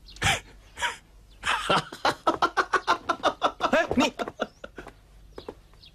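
A man laughing loudly in a fast, evenly repeated 'ha-ha-ha' of about five laughs a second, lasting between two and three seconds, after two short outbursts.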